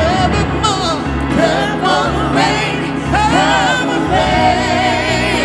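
Live pop-gospel ballad: a singer's wordless vocal ad-libs, sliding and wavering in pitch, over sustained band and string chords.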